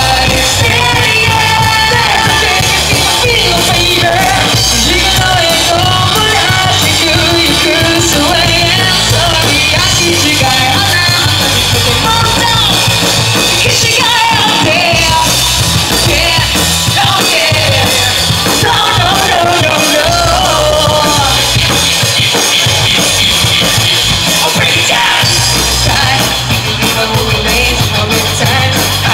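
Live j-rock band playing loud, with electric guitars, bass and a drum kit, and a singer singing over them.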